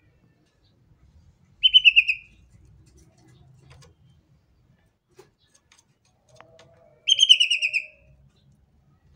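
Cucak ijo (green leafbird) singing two short, loud bursts of rapid notes that fall in pitch, the second about five seconds after the first.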